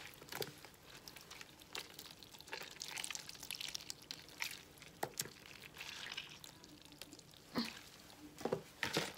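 Hands squeezing salted wild garlic and cabbage, the juice dripping and splashing back into a plastic bowl, with small irregular wet squelches.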